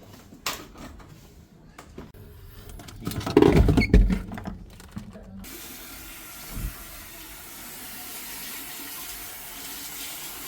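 A few knocks and heavy thumps of handling, then, about five and a half seconds in, a steady hiss of running water starts suddenly and keeps going.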